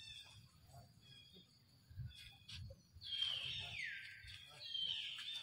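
Macaque giving high-pitched calls: one drawn-out call about three seconds in that slides downward in pitch, then a second, shorter high call near the end.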